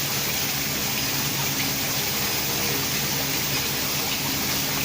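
CNC vertical induction hardening machine running: a steady rushing hiss with a low, even hum underneath.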